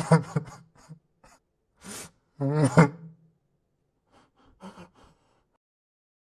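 A man crying: short choked sobs, a sharp gasping breath, then a loud wavering wail, trailing off into a few faint sobs.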